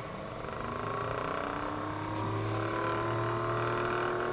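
3D-printed impeller fume-extractor pump, driven by an RS-540 brushed electric motor, spinning up: its whine rises in pitch and grows louder over the first few seconds, then holds steady.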